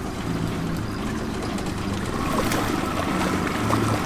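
Boat's outboard motor running steadily at trolling speed, a low even hum, with water washing around the hull.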